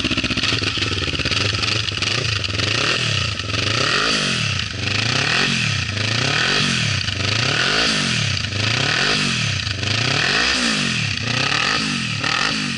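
Kawasaki Ninja 400 parallel-twin engine through an Akrapovic carbon slip-on exhaust with the catalytic converter removed, revved up and back down over and over, about once a second.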